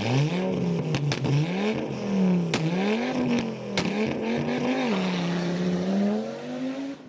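Car engine revving, its pitch climbing and dropping again and again, with a few sharp cracks along the way. It fades out near the end.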